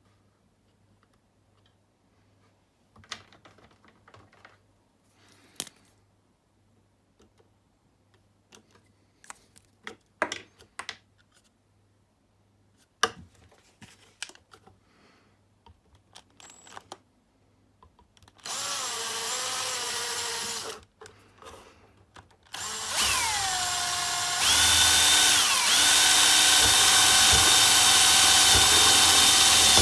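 Scattered handling clicks and knocks, then a power drill fitted with a step drill bit runs briefly, stops, and starts again, its motor whine rising and then holding steady as it drills a 20 mm hole in the button's enclosure.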